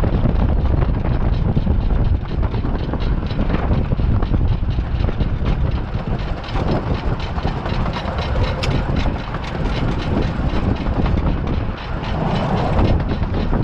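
A 15-inch gauge 2-8-2 steam locomotive running along the line, a steady loud rumble and rattle of running gear and wheels on track, dense with fine clicks, and one sharp click a little past the middle.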